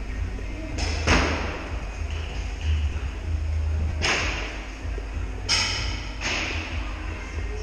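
Paintball fire and hits in a large indoor hall: four sharp thuds with echoes, about a second in and then three more close together between four and six and a half seconds.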